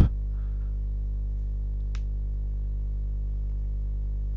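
Steady low electrical hum with a ladder of evenly spaced overtones, and a single sharp click about two seconds in.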